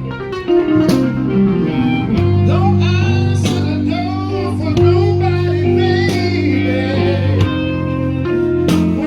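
Live blues band playing, with a guitar lead over keyboard and steady low bass notes.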